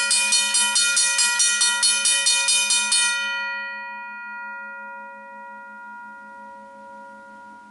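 Safetran mechanical railway crossing bell ringing, its hammer striking the gong rapidly, about four strikes a second. About three seconds in the striking stops and the gong rings on, fading away slowly.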